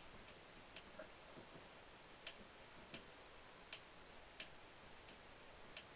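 Faint, sharp clicks at irregular intervals, about seven of them, from a small hand tool and parts being handled during disassembly of a nitro RC truck; otherwise near silence.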